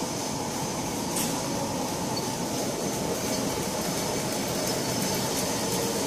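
Automatic tableware packing machine running: a steady, fast mechanical rattle over an even hum, with one sharp click about a second in.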